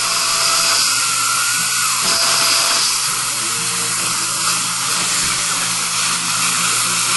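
Dental surgical handpiece running steadily, a high whine with hiss as it drills into the healed, bone-grafted implant site.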